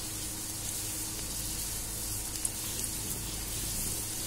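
Wheat-dough modaks deep-frying in hot oil in a kadhai, a steady sizzling hiss. A light click sounds about halfway through.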